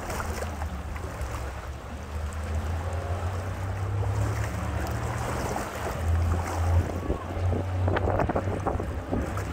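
Bayliner bowrider's engine idling with a low, steady hum, under gusty wind noise on the microphone. A few knocks come near the end.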